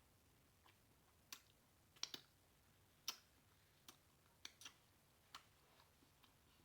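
Faint, irregular clicks and smacks of someone eating a seafood boil: about ten short, sharp clicks spread unevenly, with a quick pair about two seconds in.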